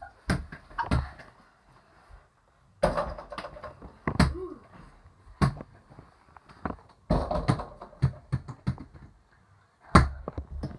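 Irregular thumps, knocks and scuffling of kids play-fighting, coming in several bursts with quiet gaps between them. The loudest knock comes near the end.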